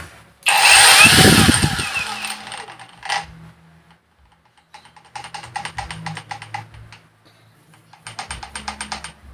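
TANZU cordless angle grinder switched on, running up with a high whine and winding down over about two seconds, then run twice more in short bursts with a rapid even ticking.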